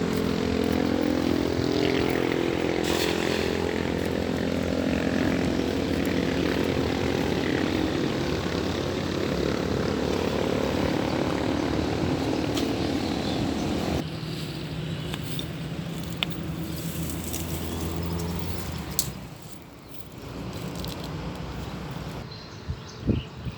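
A small engine running steadily, its pitch climbing at the start. About fourteen seconds in the sound changes abruptly to a quieter, lower engine note that dies away around nineteen seconds, and a few knocks follow near the end.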